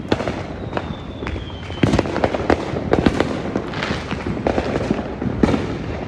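Consumer fireworks and firecrackers going off all around: an irregular, nonstop string of sharp bangs and crackles, some near and some distant, getting denser and louder about two seconds in. A thin high whistle runs through the first couple of seconds.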